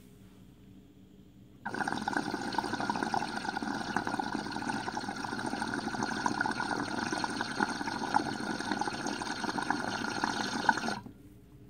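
Water bubbling and churning inside a fumed glass dab rig as air is pulled through it in a water test, a dense rush of small bubble pops. It starts suddenly about two seconds in and cuts off about a second before the end.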